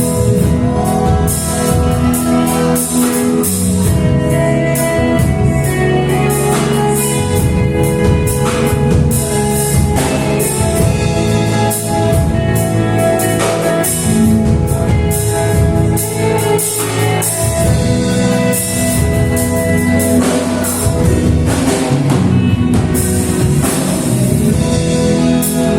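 Gospel worship band playing, with a drum kit keeping a steady beat under held chords, and singing.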